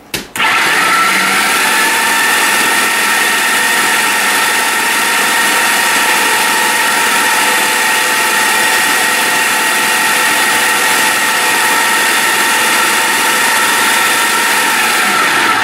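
Food processor motor running at full speed, chopping hard-frozen banana chunks: a loud, steady whir with a high whine at several fixed pitches. It starts about half a second in and stops right at the end.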